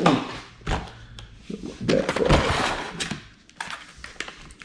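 Packaging rustling and crinkling in irregular bursts with a few sharp clicks, as packs of fishing hooks are handled and opened.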